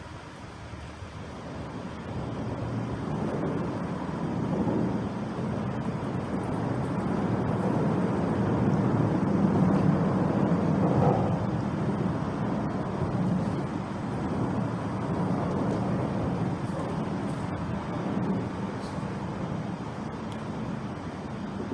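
Road traffic noise, a vehicle's tyres and engine passing close by: a steady low rumble that builds over about ten seconds and then eases off.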